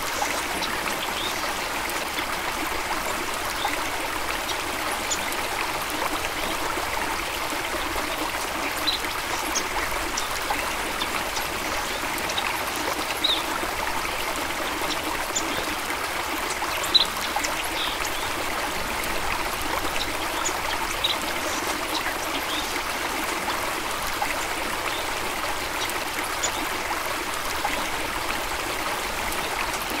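Waterfall water rushing steadily, with short, high bird chirps now and then.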